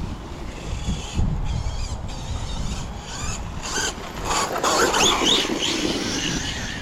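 Electric RC car's brushless motor and drivetrain whining at speed, the whine rising and falling in pitch through the second half, over a low rumble.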